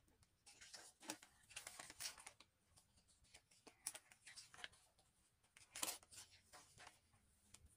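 Pages of a large glossy photobook being turned by hand: a few soft, short paper swishes and rustles against a quiet room.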